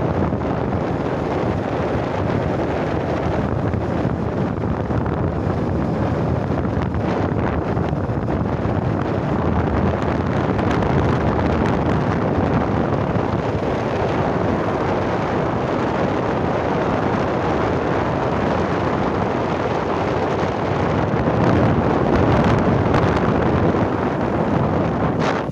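Steady, loud wind rush buffeting the microphone of a phone carried on a moving vehicle, mixed with the vehicle's road noise.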